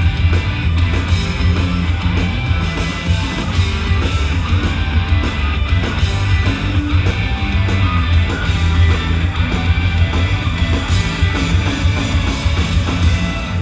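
Live rock band playing loudly, with electric guitar to the fore.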